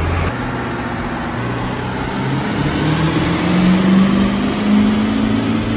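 Ford 7.3 Powerstroke turbo-diesel V8 making a pull on a chassis dyno. The engine note rises steadily as the rpm climbs, over the rush of the rear tyres spinning on the dyno rollers.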